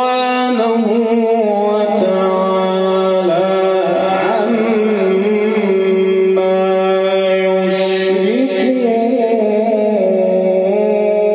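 A male qari reciting the Quran in a melodic, chant-like voice, holding long drawn-out notes that bend slowly in pitch.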